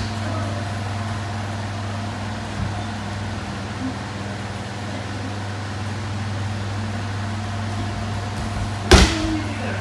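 Steady low hum of electric fans running in the dojo. About nine seconds in, a single loud thud and slap as a judoka is thrown and lands on the tatami mats.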